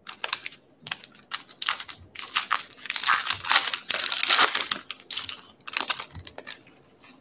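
Foil wrapper of a 2020 Bowman baseball card pack being torn open and crinkled by hand. It makes a run of sharp crackling rustles, loudest about three to four and a half seconds in.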